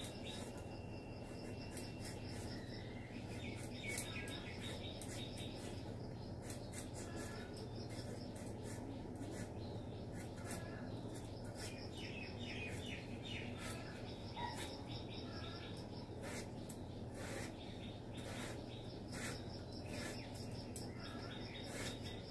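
Small birds chirping again and again in the background, with quick dry clicks from a knife slicing potato and a steady low hum underneath.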